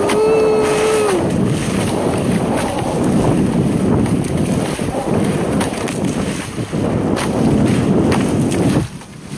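Wind buffeting the microphone and water rushing along the hull of a Nacra 20 catamaran under sail. A short held tone sounds in the first second, and the rush drops off sharply near the end.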